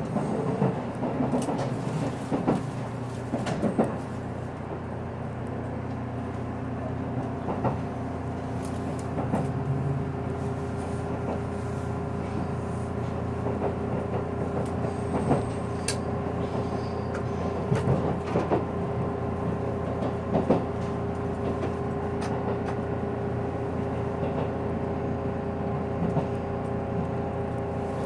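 Interior running noise of a JR Kyushu Series 783 electric train under way: a steady rumble with an electric hum of several steady tones, and sharp clicks and knocks from the wheels on the track, several in the first few seconds and scattered after.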